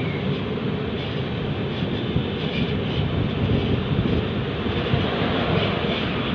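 Steady running noise of a moving passenger train, an even rumble with no change in pace.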